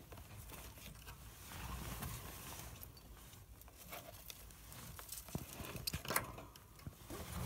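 A hand rummaging in a mouse cage: faint rustling in the bedding with scattered clicks and taps against the cage, the loudest cluster about six seconds in.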